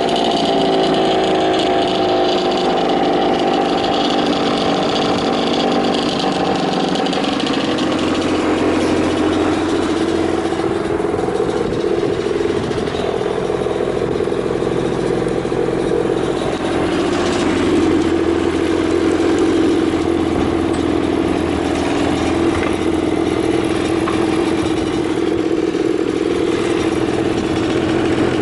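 Yamaha TZR50's 50cc two-stroke single, fitted with an aftermarket SP Tadao Jackal expansion chamber, idling steadily just after being revved. Its pitch settles a little lower about eight seconds in and wavers slightly. The seller presents it as running with no abnormal noises.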